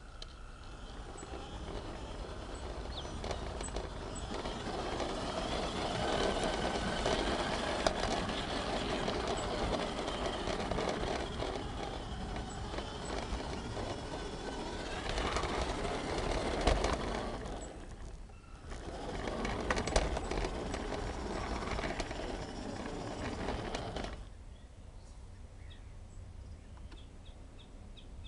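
Small garden-railway locomotive running along the rails close by, growing louder as it comes near and passes. It dips briefly about 18 seconds in, then stops suddenly about 24 seconds in.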